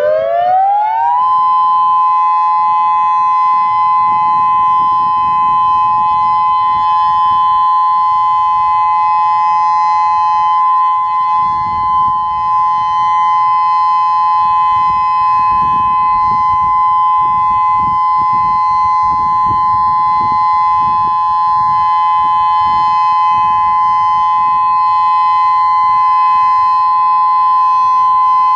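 Federal Signal Modulator 4016 electronic warning siren sounding its dual-tone Alert: two tones glide up together and, a little over a second in, settle into a steady two-note chord that holds unbroken.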